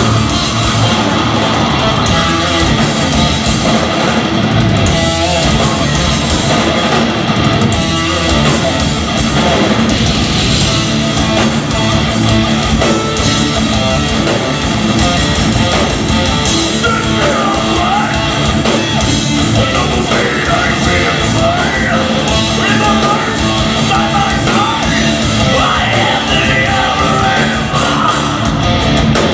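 Loud progressive metal played live by a full band: distorted electric guitars, bass and drums playing without a break.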